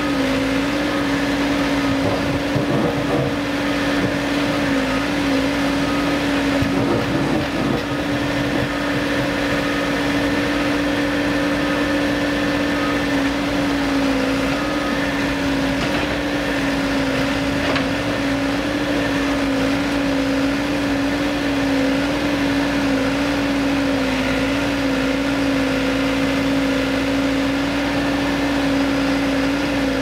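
Caterpillar backhoe loader's diesel engine running steadily under load while the backhoe digs, with a few faint knocks from the bucket working the ground.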